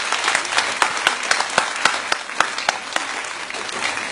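Audience applauding: many people clapping together, dense and steady.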